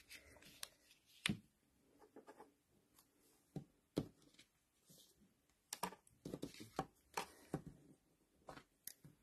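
Faint, scattered taps and clicks of card-making supplies being handled on a tabletop: short knocks at irregular intervals, more frequent in the second half.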